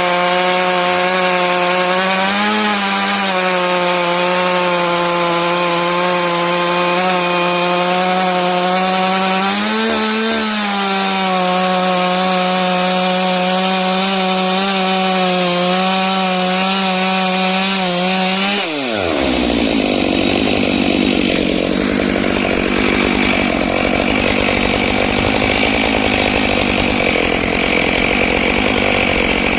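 Stihl MS661 chainsaw on a chainsaw mill, with a ripping chain, ripping lengthwise through a pine log. It holds a steady high-revving tone under load, with two brief rises in pitch. About two-thirds of the way in, the pitch drops sharply and the sound turns lower and rougher.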